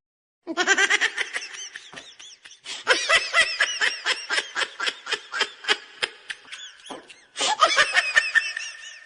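A person's high-pitched laughter in rapid pulses, a long fit followed by a second burst after a brief pause near the end.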